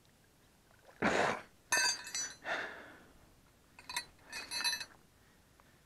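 Metal grappling hook being hauled onto the bank with a cut-up piece of tire snagged on it: a short rush of noise about a second in, then bright ringing metal clinks in two clusters, around two seconds and again around four seconds.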